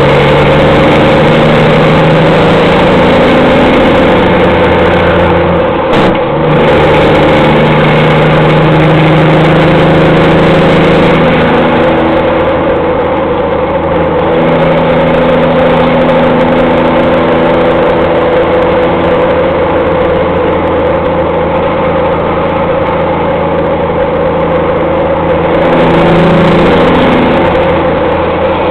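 Peterbilt truck's diesel engine through straight-pipe exhaust, heard from outside the cab, running loud under way, with a brief break about six seconds in where a gear is shifted and the engine note stepping in pitch.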